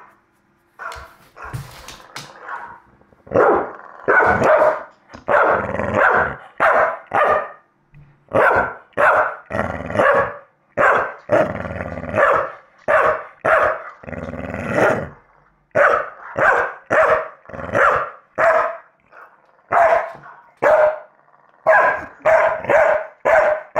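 Staffordshire bull terrier barking over and over at a phone playing back a recording of his own barking, the live and recorded barks mixing. The barks come in runs of one to two a second with short pauses, quickening near the end.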